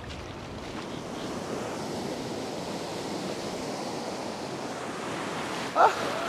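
Ocean surf breaking and washing over shallow sand, a steady rushing with some wind on the microphone. A short, loud cry cuts in near the end.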